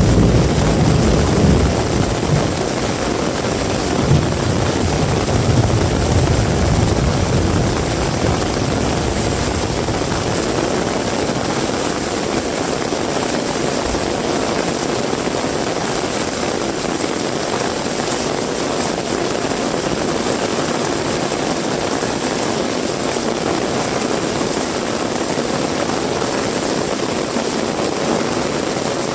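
Heavy rain falling steadily, an even hiss. A low rumble sits under the rain for the first several seconds, then fades out.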